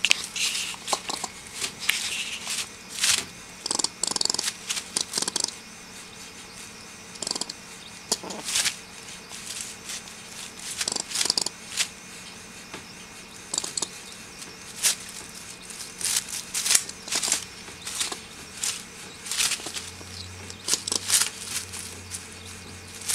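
Eastern gray squirrel in a wire live trap: irregular sharp clicks and short rasps, its angry chatter, mixed with rustling of the dry leaves it moves in.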